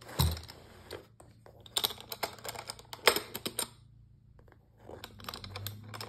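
A black blow-molded plastic tool case handled on a mat. There is a dull knock about a quarter second in, then a run of light clicks and rattles, a short lull, and more clicks near the end as the case's metal latches are worked.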